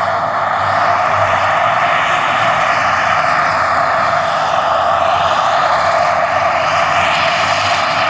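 Jakadofsky Pro 6000 model gas turbine and rotors of a scale RC Bell AH-1W Super Cobra helicopter in flight: a loud, steady turbine rush with a low hum beneath it.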